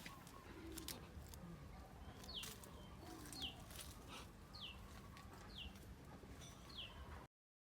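A bird calling repeatedly, short falling chirps about once a second, five in all, over faint outdoor ambience with a few light clicks; the sound cuts off abruptly near the end.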